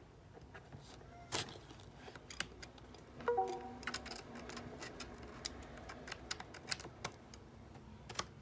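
Keys of a Razer Tartarus Pro gaming keypad clicking irregularly as they are pressed, with a brief cluster of short pitched tones about three seconds in.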